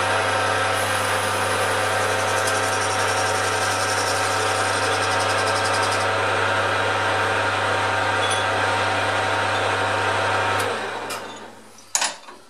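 Metal lathe running with a steady motor hum and gear whine while it takes a cut on a new axle pivot bush. The cutting hiss stops about halfway, then the lathe is switched off and spins down near the end, followed by a single clunk.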